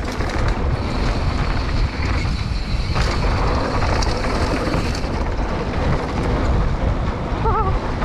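Wind rushing over an action camera's microphone while a downhill mountain bike rolls fast over a gravelly dirt trail, a steady rumble of tyre and wind noise with a few knocks from the bike.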